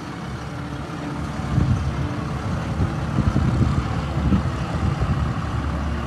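Heavy diesel vehicle engine running with a low, uneven rumble that grows louder about a second and a half in.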